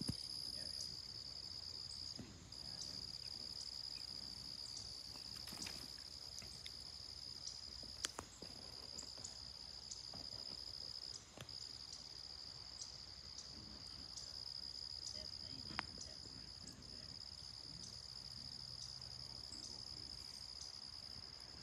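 Insects trilling in one steady high-pitched buzz that breaks off briefly a few times, with a couple of faint knocks.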